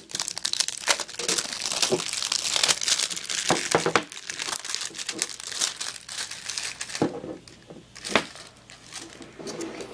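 Plastic shrink-wrap being torn and crinkled off a trading-card tin. The crackling is dense for the first four seconds, then thins to sparser crinkles with two sharp clicks near the end.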